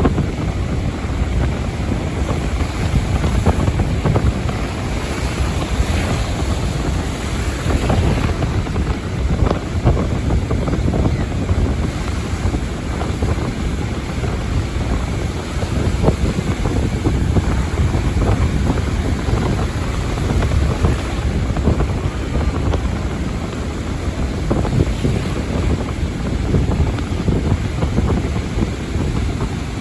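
Small waves breaking and washing in very shallow water, a steady rush of surf with heavy wind buffeting on the microphone.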